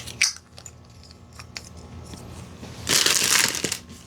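Plastic packaging crinkling as it is handled: a short rustle at the start, a few light clicks, then a louder crinkle for under a second about three seconds in.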